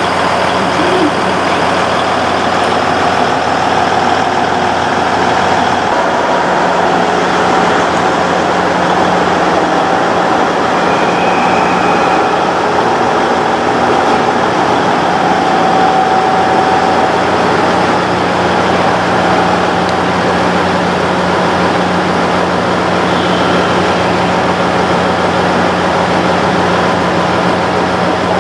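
Diesel engines of a KiYa 95 'Doctor Tokai' contact-wire and track measuring train running steadily: a constant low hum with a fainter, higher steady tone above it.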